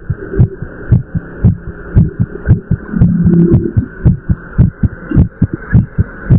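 A person's heartbeat after running, beating fast and regularly at about two beats a second.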